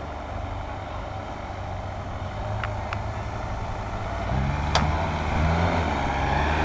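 Off-road buggy's engine running as it drives along a grassy track, revving up and getting louder from about four seconds in. Two faint clicks near the middle and one sharp knock a little before five seconds in.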